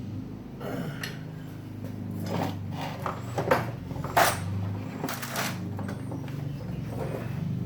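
Scattered metal clinks and clanks, two sharp ones about three and a half and four seconds in, over a low steady hum.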